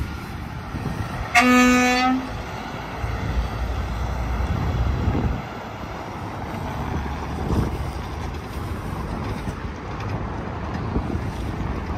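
A semi truck's air horn gives one short blast, under a second long, over the steady rumble of highway traffic passing.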